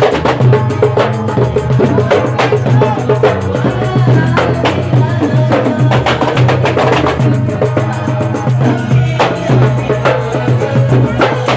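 Zapin-style Malay music playing, with sharp hand-percussion strokes over a pulsing bass and a melody line.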